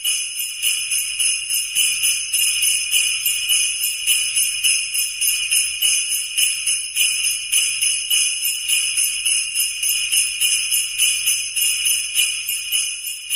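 Sleigh bells jingling continuously in a steady shaking rhythm, about four shakes a second, with a faint low pulse underneath.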